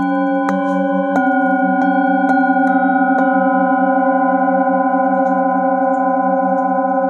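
Metal singing bowls struck in turn with a padded mallet, about six strikes in the first three seconds, then their tones ringing on together with a slow pulsing wobble.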